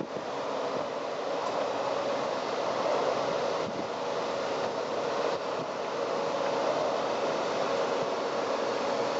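Steady road noise of cars driving slowly past: an even rush with a faint steady hum that grows slightly louder in the second half.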